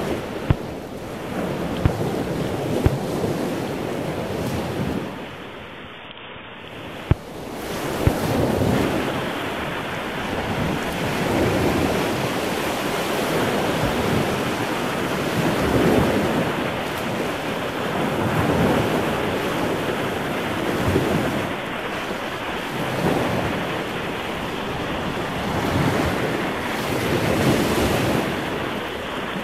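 Sea surf breaking and washing onto a beach, swelling every two to three seconds, with wind buffeting the microphone. A few sharp clicks come in the first seconds and once more about seven seconds in.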